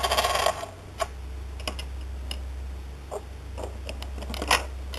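Plastic Lego parts of a homemade coin-operated gumball machine clicking and clattering as a dime is put in and the mechanism worked: a short burst of rattling at the start, then scattered single clicks, over a steady low hum.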